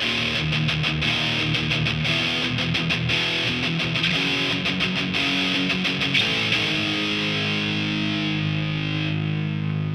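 Electric guitar riff through a Marshall amp head, picked up by an Audix ADX51 pencil condenser mic in a large untreated room. The notes are picked quickly at first, then from about two-thirds of the way in longer notes are held and left ringing.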